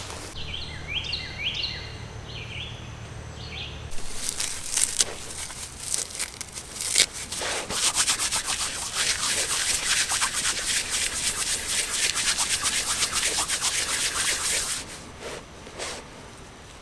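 Dry fibrous tinder being rubbed briskly between the palms to buff it into a fluffy ball: a fast, scratchy rustling that starts about four seconds in, runs for about ten seconds and stops shortly before the end.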